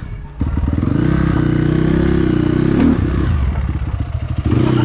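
Motorcycle engine running under throttle. It comes in abruptly about half a second in, holds a fairly steady note, eases off briefly near the end and picks up again.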